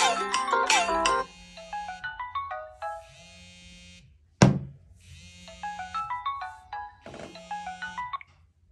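Samsung phone ringtone melody playing through the phone's speaker: a short phrase of stepped notes that plays twice. A denser tone cuts off about a second in, and a sharp click sounds about four seconds in.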